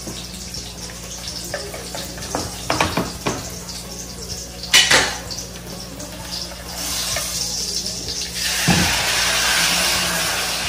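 Spoon and ceramic bowls clinking, with one sharp clatter about halfway through. In the second half a steady sizzle of food frying in a hot pan starts up and grows louder near the end as more goes in.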